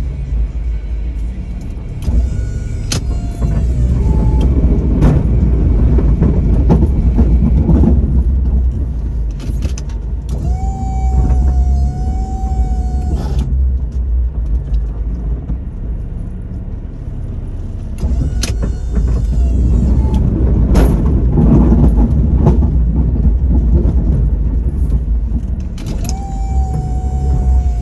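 2002 Jeep Liberty's engine running under load while plowing snow, swelling twice as it pushes. Several times, for a couple of seconds each, a steady electric motor whine rises over it: the plow's electric-hydraulic pump raising or angling the blade. There are scattered clunks from the blade and truck.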